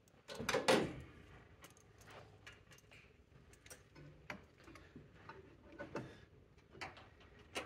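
Small clicks and knocks of a metal oil catch can and its bracket being handled and fitted by hand under the hood, with a louder clatter about half a second in and a few sharper knocks later on.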